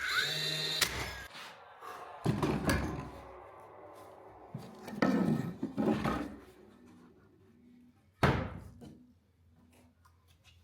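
Irregular wooden knocks and thuds as oak parquet pieces are handled and fitted into place, with a short humming tone at the start and a single sharp, loud strike about eight seconds in.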